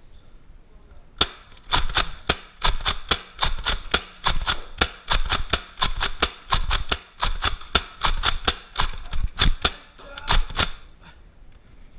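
Nerf blasters clacking in rapid succession as they are primed and fired: a long run of sharp plastic clicks, about three a second, with a brief pause near the end.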